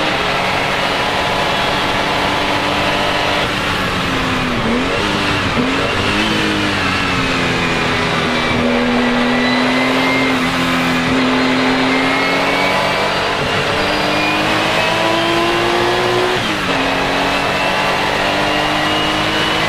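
Porsche 935 K3's turbocharged flat-six racing engine under load, running continuously. The engine note dips and wobbles about five seconds in, then climbs slowly through a long pull and drops suddenly at a gear change near the end.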